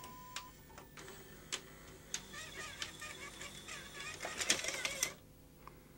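Panasonic NV-HS1000 S-VHS video recorder ejecting a cassette, its top cover off. A few clicks from the deck mechanism come first, then about three seconds of motor and gear whirring as the tape unloads and the cassette is driven out, stopping abruptly about five seconds in.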